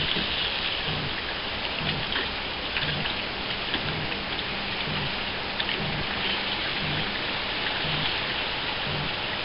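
Rainwater scooped by hand from the floor of a small sailboat and poured over the side, heard as a steady rain-like hiss of splashing water with a few faint ticks. A soft low pulse repeats about once a second beneath it.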